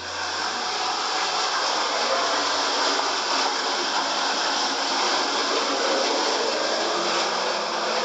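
Steady rushing of water, a waterfall pouring into a cave pool.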